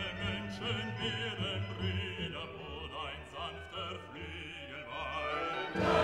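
Background music: a classical piece with a singing voice on wavering held notes over orchestra, getting louder just before the end.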